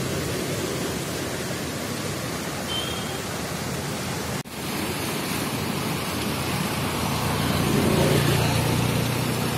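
Steady rushing of a swollen river in flood, with fast, muddy water pouring past, broken by a short drop-out about halfway through.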